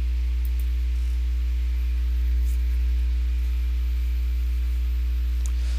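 Steady low electrical hum with a buzz of evenly spaced overtones above it, the mains hum of the recording setup, with a few faint clicks.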